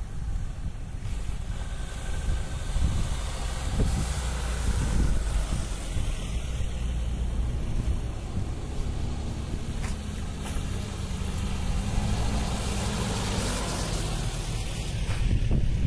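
Off-road SUV driving along a dirt track towards the microphone, its engine note rising and getting louder as it passes close by near the end, with tyres crunching on the dirt. Wind rumbles on the microphone throughout.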